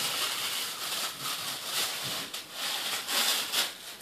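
Packaging rustling and handling noise as the parts of a canister vacuum cleaner are lifted out of their box: irregular, with several short sharp sounds.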